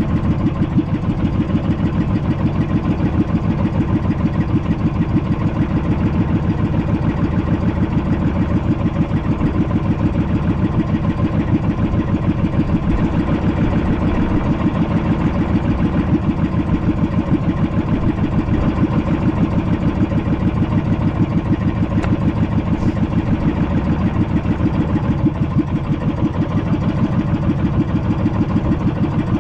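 Small fishing-boat engine running steadily at an even speed, a fast regular chugging that neither rises nor falls.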